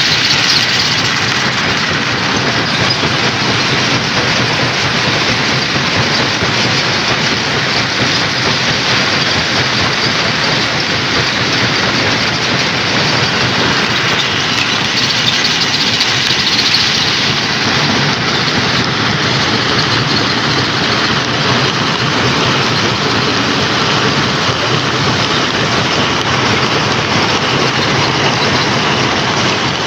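Stone crusher running and crushing rock: a loud, steady noise of machinery and breaking stone with no letup.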